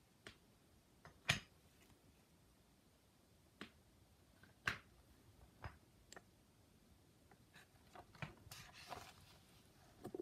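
Small wooden figures being lifted off a table one after another, knocking lightly against each other: about half a dozen quiet, sharp knocks spread over several seconds, with a brief rustle near the end.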